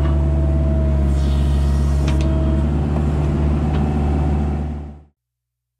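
Kubota mini digger's diesel engine running steadily, heard from the machine itself, with a few light clanks. It fades out to silence about five seconds in.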